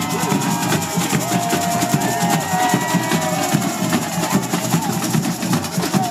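Samba percussion band playing, surdo bass drums and other drums keeping a dense, driving samba rhythm, with a few held melody notes over the drumming.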